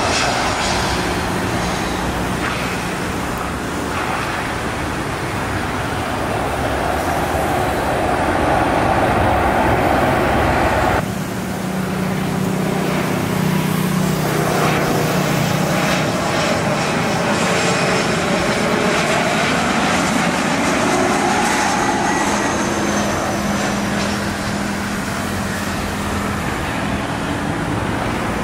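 Jet airliner engines running, a steady loud rush with a low hum and slowly gliding whine; the sound changes abruptly about eleven seconds in, where one shot gives way to another.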